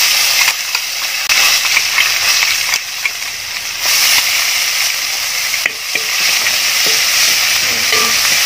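Ginger-garlic paste sizzling and crackling in hot frying oil in a large wide pan, stirred with a ladle.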